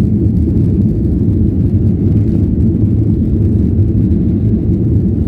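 Cabin noise inside a Boeing 737-800 moving along the runway: a steady, heavy low rumble of its CFM56 engines and the airframe, unchanging throughout.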